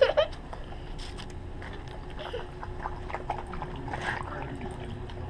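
Dogs lapping water from a stainless steel bowl: a run of quick wet laps and clicks, with one loud short knock right at the start.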